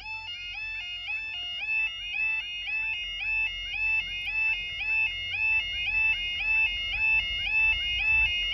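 Level crossing audible warning alarm sounding its repeating stepped two-tone warble, about two cycles a second, signalling that the crossing is closing for an approaching train. A low rumble grows under it towards the end.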